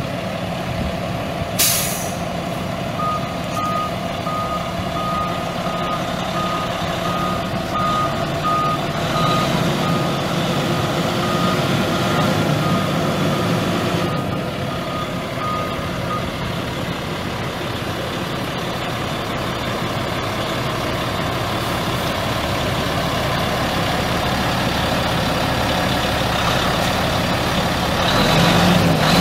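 Caterpillar C12 inline-six turbo diesel of a 2002 Freightliner FLD120 semi running. A short air hiss comes about two seconds in, then the backup alarm beeps about once a second for some thirteen seconds as the truck is put in reverse. The engine carries on and grows louder near the end.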